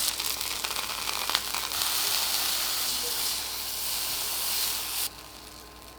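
Pork tenderloin searing, its juices and fat sizzling with a steady hiss that cuts off sharply about five seconds in.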